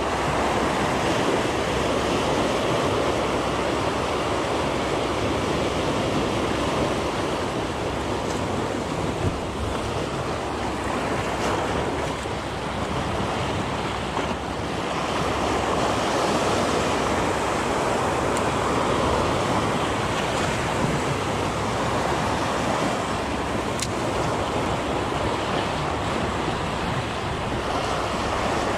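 Sea waves breaking and washing over shore rocks close by, a steady rush of surf, with wind on the microphone.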